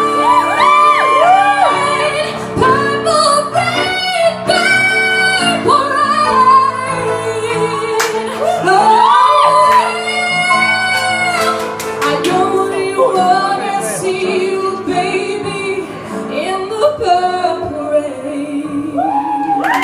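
Female vocalist singing long, sliding notes over piano accompaniment, live.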